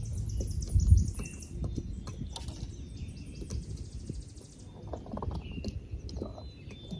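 Birds chirping and trilling over a steady low rumble, with a dull bump about a second in.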